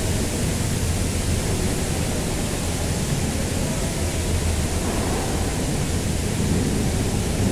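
Steady rushing roar of air and machinery echoing along an underground metro tunnel, with a low hum beneath it and no change throughout.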